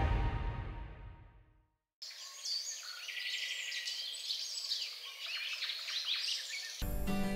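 Many birds chirping at once, a dense chorus of short high calls, after music fades out to a moment of silence. Music starts again just before the end.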